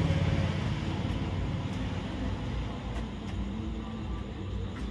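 A motor vehicle's engine running with a low hum, fading over the first couple of seconds and then going on faintly.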